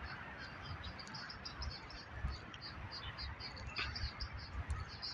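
Outdoor park ambience: a steady run of short, high-pitched chirps, several a second, from small animals, over a low rumble of wind on the microphone.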